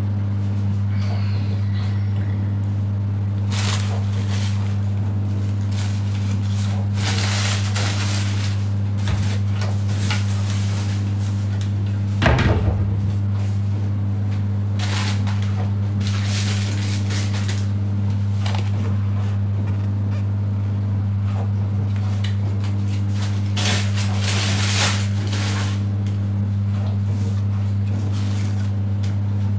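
A steady low hum, with several brief scraping or rustling noises and one sharp knock about twelve seconds in.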